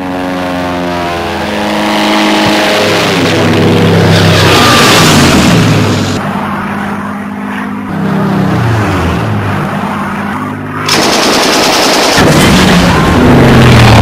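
Propeller biplane engines droning, their pitch sliding down and up as planes pass close, mixed with machine-gun fire. The sound changes abruptly a few times, at about 6, 8 and 11 seconds in.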